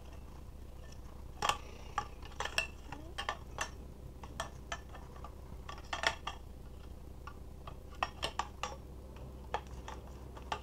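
Aluminium tubes and joints of a folding camping table clicking and clinking against each other at irregular intervals as the frame is folded and slotted together.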